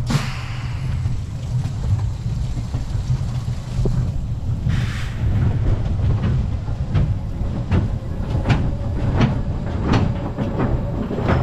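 Wooden roller coaster train rolling slowly into the station at the end of the ride, with a steady low rumble of its wheels on the track. There is a short hiss about five seconds in, then a run of sharp clacks, about two a second.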